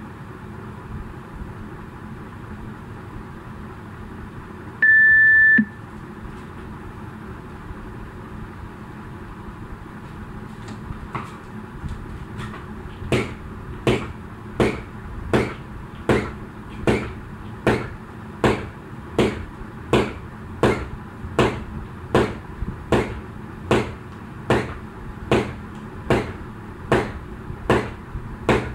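A single high electronic interval-timer beep about five seconds in, marking the start of the next interval. From about eleven seconds, a jump rope skipping: the rope slaps the floor with each jump in a steady rhythm, about three strikes every two seconds.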